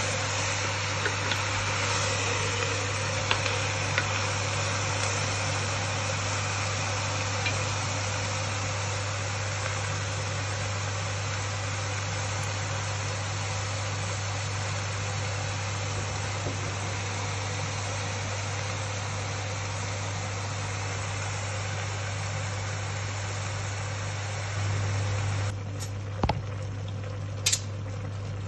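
Chicken pieces simmering in their own juices in a stainless steel pot, a steady hiss over a constant low hum. The hiss thins out near the end, where a few sharp clicks sound.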